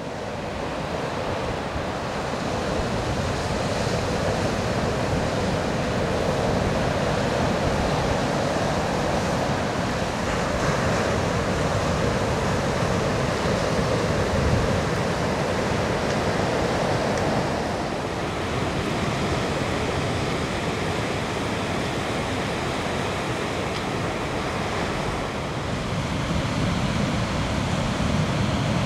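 Ocean surf breaking and washing up a sandy beach, a steady continuous rush of waves.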